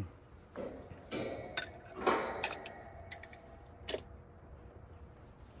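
A handful of light, sharp clicks and clinks, with a couple of short rustles in the first half, from tools and parts being handled on a heat pump's fan grille.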